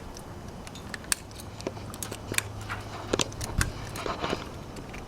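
Pruning shears snipping small water sprouts off a willow, a run of sharp clicks and snips coming faster after about two seconds.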